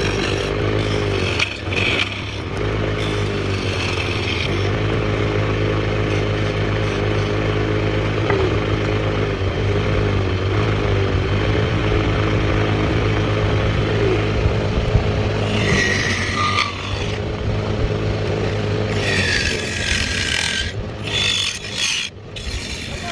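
A motor-driven wood lathe running with a steady hum while a cutting tool scrapes against the spinning wood of a bowl in several bursts, the hum dropping away near the end.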